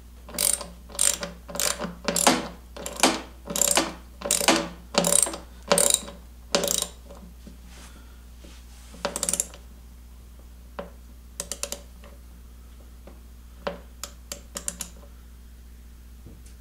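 Hand ratchet wrench clicking as the chain case check plug is screwed back in: about a dozen ratchet strokes at a little under two a second, then one more stroke and a few scattered single clicks.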